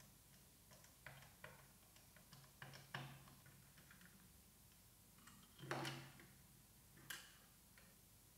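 Faint clicks and light knocks from the plastic case and circuit board of a UNI-T UT81D+ multimeter being handled as its main board is lifted out. A louder, slightly longer knock comes a little before six seconds in, and one more click about a second later.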